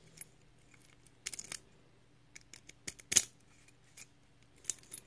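Key turning in a freshly re-pinned pin-tumbler lock cylinder: a few short metallic clicks and scrapes, the loudest about three seconds in.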